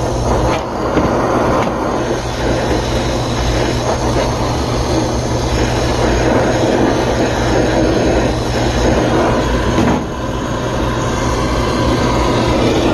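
Steady hiss and rush of a brazing torch flame held on a brazed copper-to-valve joint, heating it to melt the solder free, with a steady low hum underneath. The flame noise dips briefly about ten seconds in.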